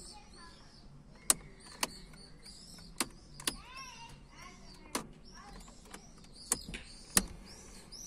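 Sharp clicks, about seven at irregular intervals, some in pairs half a second apart, from the Opel Vectra B's steering-column light and turn-signal stalk being flicked to test its repaired switch contacts. Birds chirp faintly in the background.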